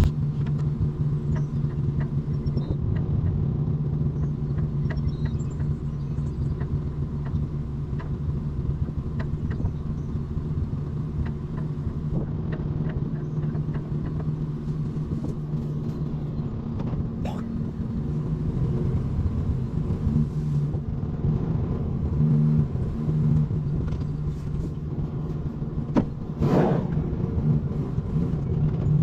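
A pickup truck's engine runs steadily while driving, with scattered light clicks and rattles. Near the end comes a brief whoosh that falls in pitch.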